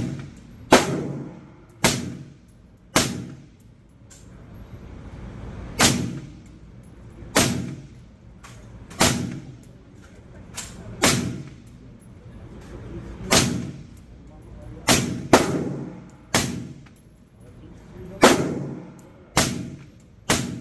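Suppressed 5.56 AR-15 with a 12.5-inch barrel and a Banish 30 suppressor in its short configuration, fired semi-automatically at a slow, uneven pace of roughly one shot a second, some shots coming in quick pairs. Each shot is a sharp crack followed by a short echo in the indoor range.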